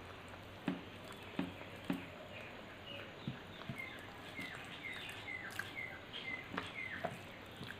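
Close-up mouth sounds of eating: chewing with wet smacks and clicks of the lips and tongue, coming as a string of short sharp sounds.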